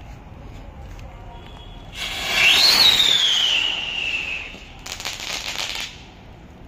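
Coronation whistling rocket taking off with a rush and a shrill whistle that rises sharply, then falls slowly over about two seconds. About a second later comes a burst of dense crackling from the chatar patar crackling compound taped on in place of its cap, a sign that the added compound ignites in flight.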